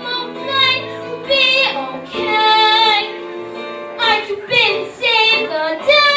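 A child singing a show tune solo with instrumental accompaniment, holding long notes with vibrato.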